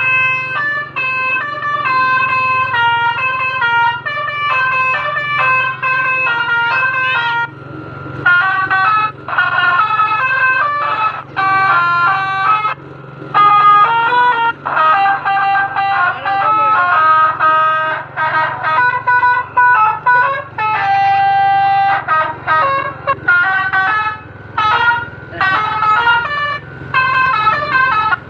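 Telolet bus horn, a multi-tone horn playing a fast tune of quick stepped notes in phrases with short breaks, with one long held note about two-thirds through. A steady low hum runs underneath.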